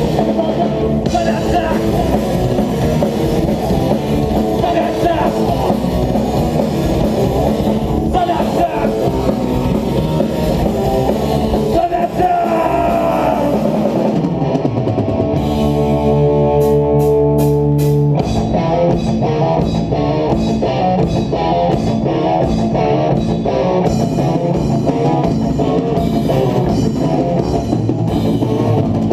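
Punk rock band playing live: distorted electric guitar over a drum kit. About halfway through, the guitar slides down in pitch and the band holds a chord for a few seconds with cymbal hits. Then the full band comes back in.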